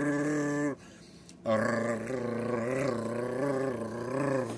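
A person's voice imitating a snowmobile engine, a buzzing drone. It stops for a breath about a second in, then resumes with a wavering rise and fall in pitch, about twice a second, like an engine revving.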